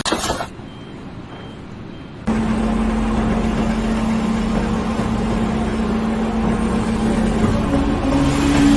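A vehicle or machine engine running steadily, with a constant hum, starting abruptly a couple of seconds in. A second, higher steady tone joins near the end.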